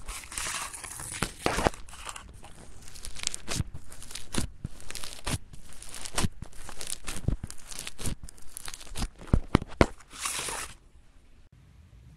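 Foam slime (floam) being squeezed and stretched by hand, a dense crackling with many sharp pops, the loudest cluster about three-quarters through. It stops shortly before the end.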